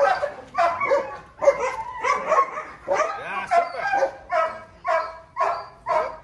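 A dog barking over and over in short, yelping barks, about two a second.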